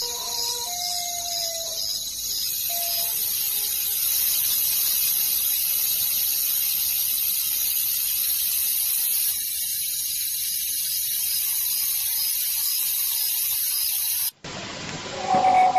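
A steady, high-pitched hiss, with a faint repeating chirp and a few faint falling tones in the first few seconds. About a second and a half before the end it breaks off and a pitched, wavering sound begins.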